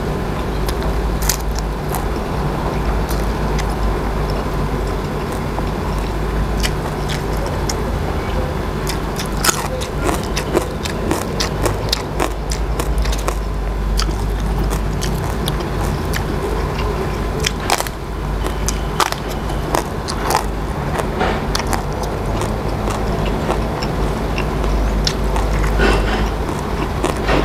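Close-up chewing and crunching of crisp raw vegetables, with many sharp crunches bunched in the middle, over a steady low hum.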